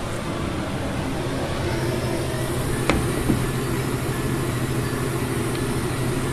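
Tattoo machine buzzing steadily as it works, with a sharp click about three seconds in.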